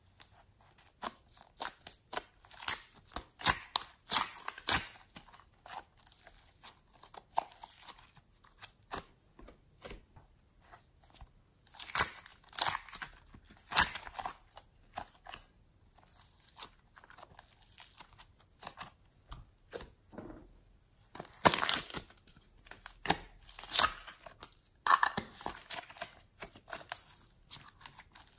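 Slime being handled and squeezed by hand, along with plastic slime containers being opened and emptied: a run of sticky clicks, crackles and small pops, in several louder flurries.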